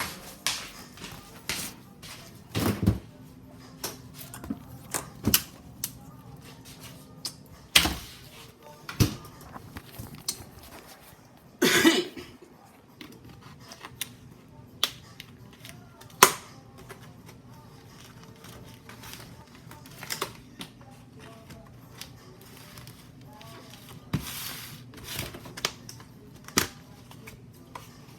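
Irregular clicks and knocks of refrigerator shelves and food containers being handled, with louder knocks about 8, 12 and 16 seconds in.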